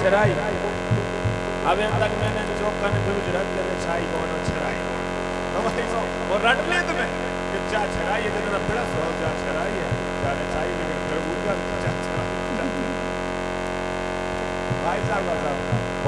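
A loud, steady electrical mains hum through the stage microphones and sound system, with brief fragments of a voice at the microphone now and then.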